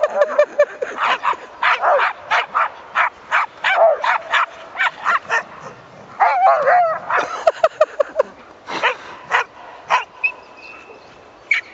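Dogs play-barking in quick repeated barks, with wavering, whining yelps about six seconds in; the barking thins out over the last couple of seconds.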